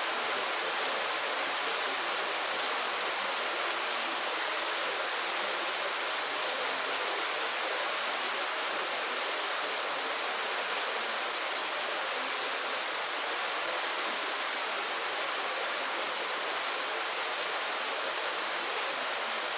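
Heavy rain falling in a downpour: a steady, dense hiss with no breaks.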